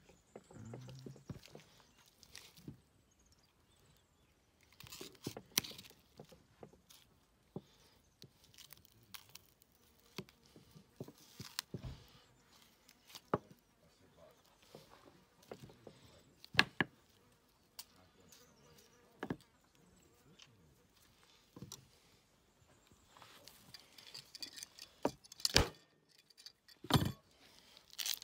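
Knife cutting and scraping along a deer leg bone on a wooden chopping board, with several sharp knocks of knife or bone against the board, the loudest about midway and near the end.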